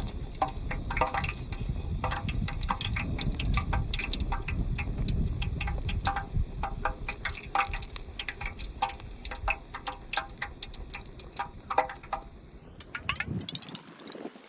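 Bottle gourd leaves deep-frying in hot oil, sizzling with irregular sharp crackles and pops. The low bubbling haze falls away near the end.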